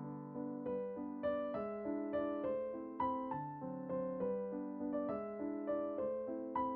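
Background music: a solo electric piano playing a gentle melody of separate chords and notes that each die away.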